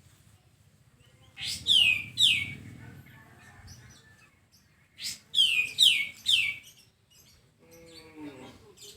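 A songbird calling in short bursts of three or four sharp, high notes that each sweep quickly downward, repeated every few seconds. A lower falling call comes in near the end, over a faint low hum.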